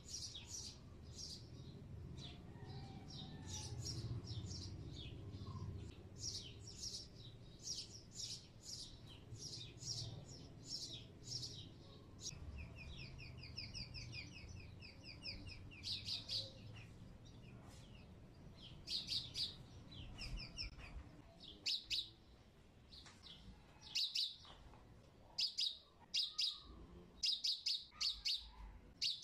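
A small bird chirping over and over in short, sharp calls, with a rapid trill about halfway through. The chirps come louder and in clusters near the end.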